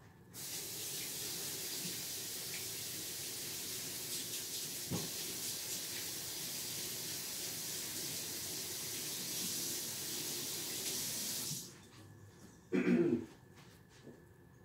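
A steady rushing hiss lasting about eleven seconds that cuts off abruptly, with a single click about five seconds in.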